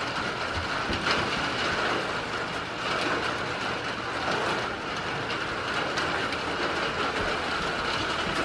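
Steady rain falling on a shed roof: an even hiss without a break.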